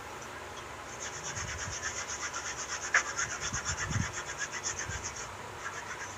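Fast back-and-forth scrubbing of burnt cookware in a stainless steel sink, about nine strokes a second, starting about a second in and stopping about five seconds in. A sharp knock and a dull thud come partway through.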